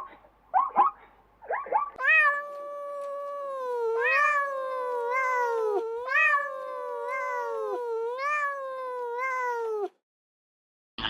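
A cat meowing in one long unbroken wail, its pitch jumping up and sliding back down about once a second. A few short chirping calls come before it.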